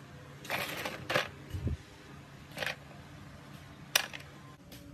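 Small metal parts of a dismantled bench drill's spindle and chuck assembly clicking and clinking as they are handled and set down, with a brief scrape early on, a dull thump about a second and a half in, and a sharp click near the end.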